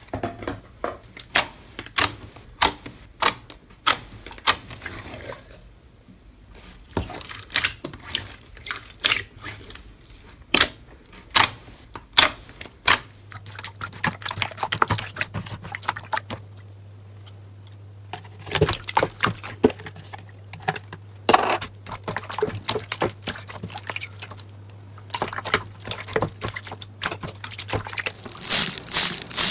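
Slime being pressed and poked by hand, giving an irregular run of sharp clicks and pops.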